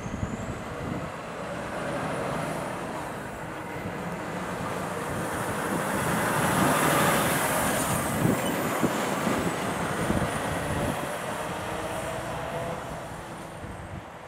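Truck driving past: engine and tyre noise build up to a peak about seven seconds in, then fade away, with a thin high whine bending up and down over it.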